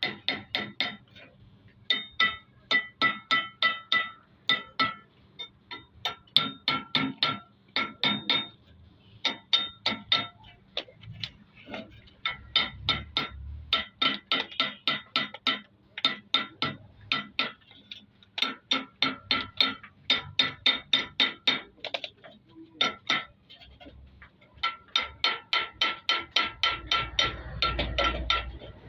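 Metal tool repeatedly tapping a metal engine part, in runs of about four strikes a second with short pauses, each strike ringing.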